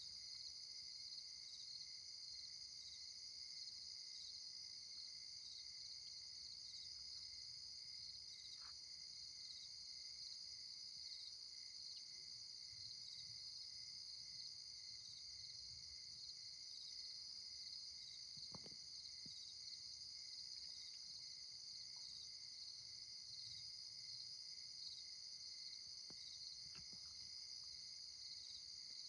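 Steady night chorus of crickets and other insects, a constant high trilling, with a few faint clicks now and then.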